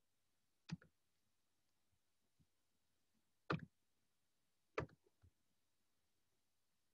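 Near silence broken by three short computer mouse clicks, about a second in, then around three and a half and five seconds in.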